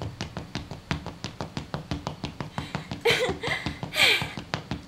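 Rapid, even tapping, about five taps a second, a storyteller's sound effect of someone climbing a long flight of stairs. Two short bursts of voice break in about three and four seconds in.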